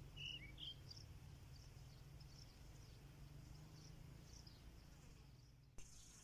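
Near silence: faint outdoor ambience with a low hum and a few faint, short high chirps, a cluster of them in the first second.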